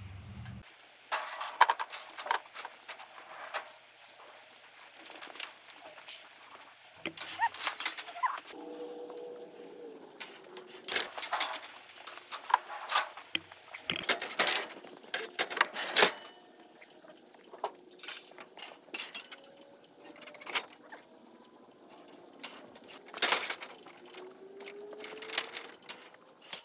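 Irregular metallic clanks and rattles from a steel sheep-handling chute and its sorting gates as ewes are moved through it.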